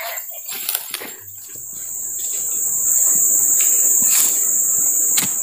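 A steady, high-pitched drone of insects, growing louder over the first few seconds, with a few light knocks near the start.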